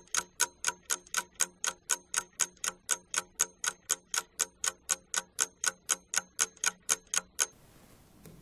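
Ticking clock sound effect used as a task timer: rapid, even ticks about four a second that stop abruptly about seven and a half seconds in.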